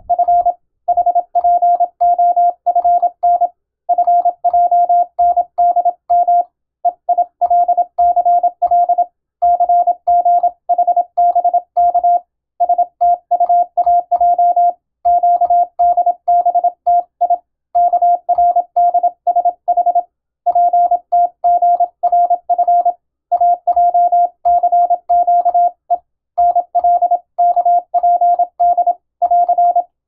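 Morse code sent by hand on a straight key: one steady high sidetone keyed in dots and dashes, grouped into five-letter code groups with short pauses between them, with faint knocks from the key's strokes.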